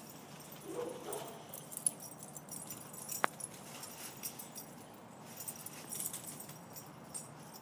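Peruvian Inca Orchid dogs moving about, with faint jingling, scattered light clicks and a brief low dog whine about a second in. A single sharp click comes a little after three seconds.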